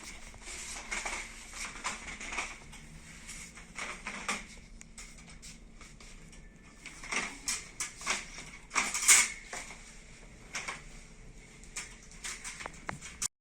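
Handling noise of small objects: scattered clicks, taps and rustles over a faint steady hum, the loudest a sharp clatter about nine seconds in. The sound cuts off suddenly near the end.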